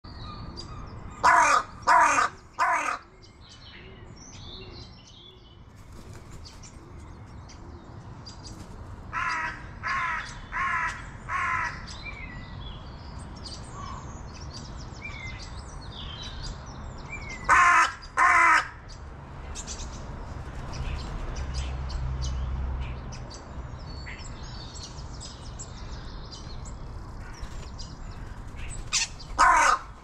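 Crow cawing in bouts of two to four caws: three near the start, four fainter ones about ten seconds in, two around eighteen seconds and three more at the end. Small birds chirp faintly in between, and a low rumble rises and fades around twenty-two seconds.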